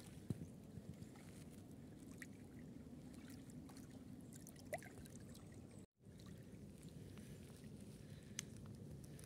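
Small waves lapping faintly against a gravel shore. The sound drops out for a moment about two-thirds of the way through.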